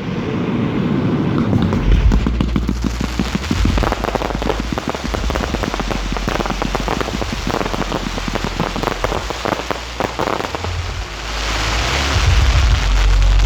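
Fireworks display heard from the firing site: low thuds of shells firing, with a dense crackle of many small reports that thins out past the middle, then a hissing burst and more thuds near the end.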